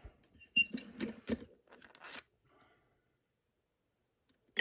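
Small metal lock parts being handled as a picked lock is taken apart: a cluster of clicks and scraping for about two seconds, then a single sharp click near the end.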